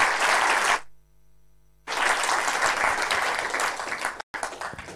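Audience applauding, broken by a gap of about a second near the start and a short break about four seconds in.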